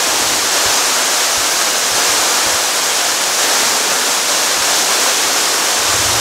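Underground waterfall inside a cave, falling water making a steady, even rush.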